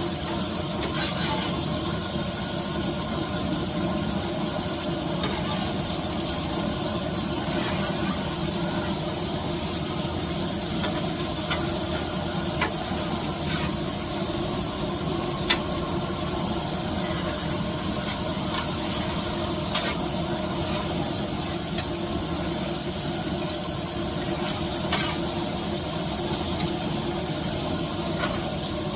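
Food sizzling steadily on a hot cooking surface, with a few sharp clicks of a utensil against it.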